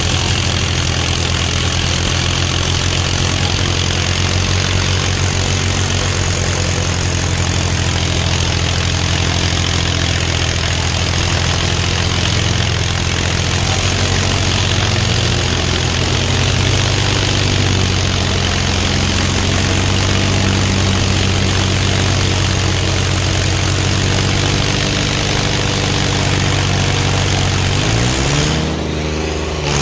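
New Holland diesel tractor engine, with a second tractor coupled behind it, running hard under load in a tractor tug-of-war, a loud steady deep drone. Near the end the engine note dips and then climbs again.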